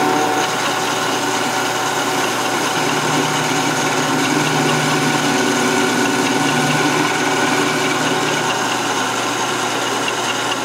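Metal lathe running steadily while its tool turns down the outside diameter of a steel rifle-barrel sleeve: an even machine drone with several held tones over a hiss of cutting.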